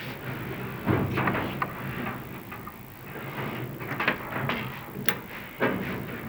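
Irregular knocks and light clatter over a low steady hum.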